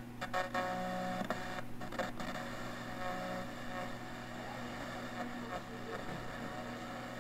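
FM tuner of a vintage Philips 3-in-1 stereo being tuned across the band, giving a steady hiss of static between stations.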